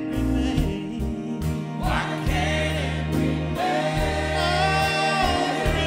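A gospel choir singing in harmony over an instrumental backing, holding long, wavering notes from about two seconds in.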